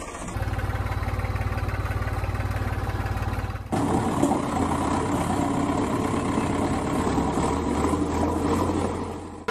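Engine running steadily with a fast, even low chugging; about four seconds in it cuts abruptly to a different, fuller engine sound that runs on steadily.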